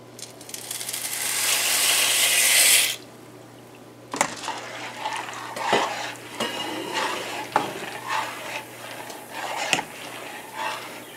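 Dry macaroni noodles poured into a stainless steel pot of boiling water: a hiss that grows louder for about three seconds and cuts off suddenly. Then a metal spoon stirs the noodles, with scattered clicks and knocks against the pot.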